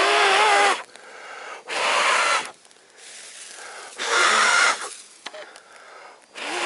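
A person blowing hard on a freshly lit campfire to get the flames going: four long, breathy blows about two seconds apart.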